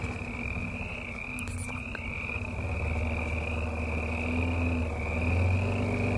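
Toyota Land Cruiser FZJ80's supercharged straight-six running low as the truck creeps slowly through mud, under a steady chorus of frogs calling in repeated short trills.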